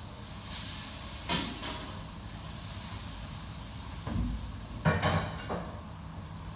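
Food sizzling in a hot pan in a kitchen: a steady hiss starts at once, with four sharp knocks and clatters over it, the loudest a little before five seconds in.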